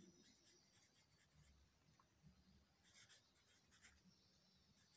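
Faint scratching of a pencil writing a word on a paper worksheet, in a few short strokes.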